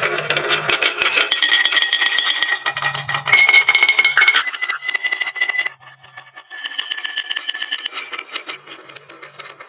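Many marbles clattering and rolling down a wooden marble run, a dense stream of clicks. The clicking thins out suddenly a little before six seconds in.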